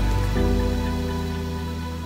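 Instrumental background music: held chords, changing chord about half a second in.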